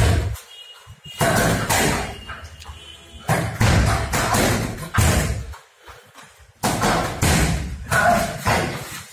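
Kicks and punches landing on a hanging heavy punching bag: sharp thuds in quick combinations of one to three strikes, with short pauses between the combinations.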